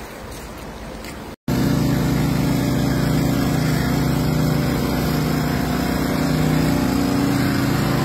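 A quiet, even rushing noise, then after a sudden cut about a second and a half in, an engine running steadily with a low hum, much louder.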